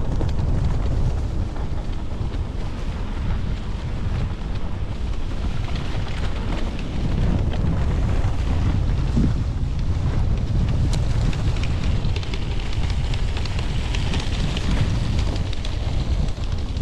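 Dirt bike engine running at low speed on rough grass, largely covered by wind buffeting the helmet camera's microphone in a steady low rumble.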